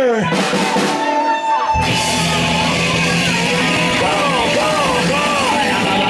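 Live rock band playing with drum kit, guitars and yelled, wavering vocals. A pitch glide falls away at the very start; for about a second and a half only a high wash remains, then the full band crashes back in.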